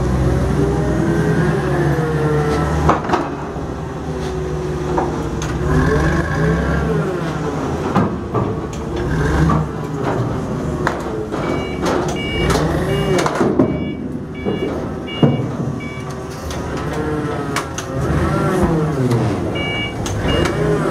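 Caterpillar forklift's engine running and revving up and down as it manoeuvres, with a few sharp metallic knocks. Its reversing alarm beeps about halfway through and again near the end.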